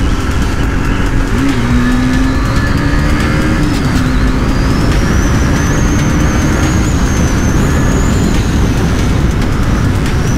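KTM RC 390's single-cylinder engine running as the motorcycle cruises, its note holding mostly steady with small rises and falls, under a heavy rush of wind on the microphone.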